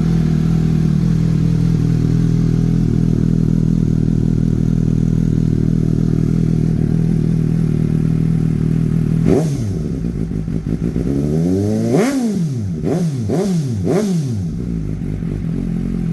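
Suzuki GSX-S750 inline-four idling through an aftermarket Dominator exhaust with the dB-killer insert removed. About nine seconds in it is revved once, then given four quick throttle blips before settling back to a steady idle.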